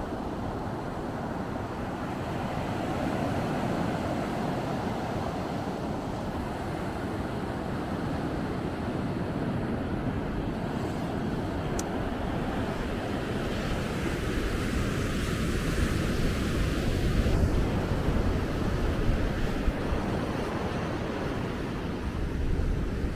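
Ocean surf breaking and washing up the beach in a steady rush, with wind buffeting the microphone in gusts during the second half.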